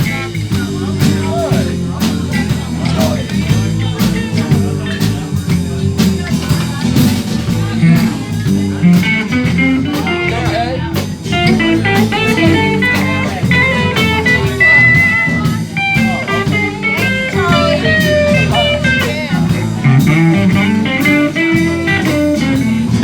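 Live blues band playing an instrumental stretch: bass and drums keep the groove while a guitar plays a lead line, the solo line growing busier about nine seconds in.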